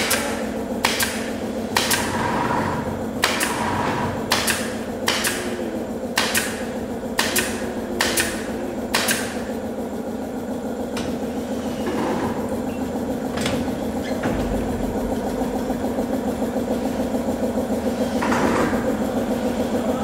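Pneumatic nail gun firing into wooden boards: about ten sharp shots roughly a second apart, then three more spaced out about halfway through. A steady machine hum runs underneath.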